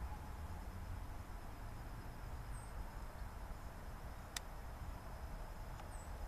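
Faint steady low rumble of outdoor background noise, with a single sharp click about four seconds in and two faint, short high chirps.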